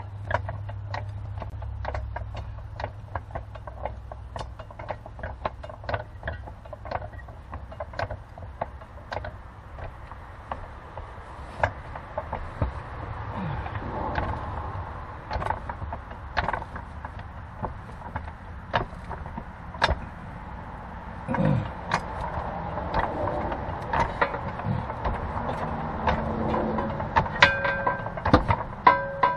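Hydraulic floor jack being pumped to lift a car's transmission into place: a long run of short, evenly spaced clicks and knocks from the pump and lifting arm.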